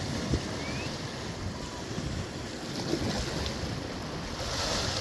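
Wind buffeting the microphone over the steady wash of sea waves, the hiss of the surf swelling near the end.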